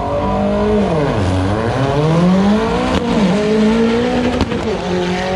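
Car engine driven hard, its pitch dropping and climbing several times as the revs rise and fall. There is a brief sharp click about four and a half seconds in.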